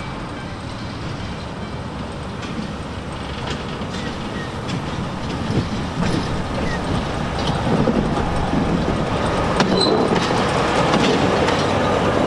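Narrow-gauge light-engine train led by diesel locomotive DH5, with two small steam locomotives coupled behind, rolling slowly toward the listener and passing close by. The engine and the wheels on the rails grow steadily louder, with scattered clicks from the track.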